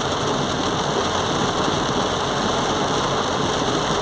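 Heavy rain falling on a car's roof and windshield, mixed with the car's engine running and its tyres going through floodwater, as one steady noise heard from inside the cabin.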